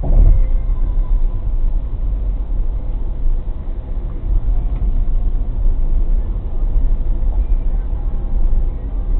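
Steady low rumble of road and engine noise inside a car's cabin at highway speed, picked up by the dashcam's microphone, with a short thump right at the start.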